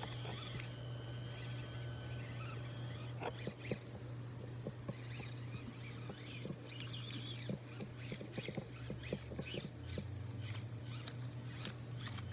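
Axial SCX24 1/24-scale RC crawler with a steady low hum from its small electric motor and drivetrain as it crawls over logs and rocks, with many irregular clicks and scrapes of its tyres and chassis on stone, wood and gravel.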